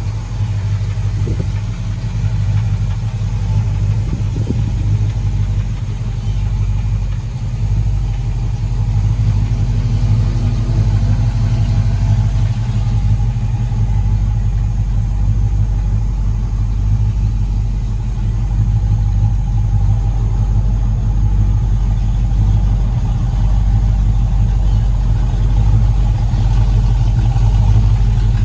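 1956 Ford F100 custom pickup's engine idling steadily with a deep, even low hum.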